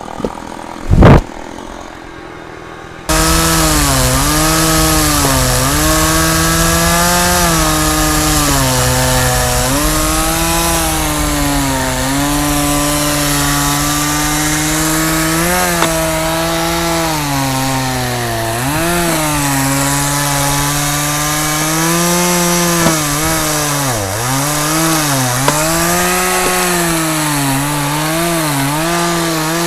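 A Stihl two-stroke chainsaw bursts into running about three seconds in, after a brief loud sound about a second in. It then runs hard through wood, its pitch dipping and recovering as the chain loads up in the cut.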